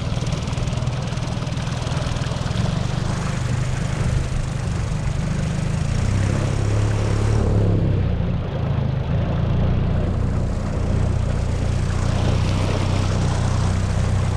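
Small tiller-steered outboard motor running steadily, pushing the boat along under way. Its engine note shifts slightly about seven seconds in.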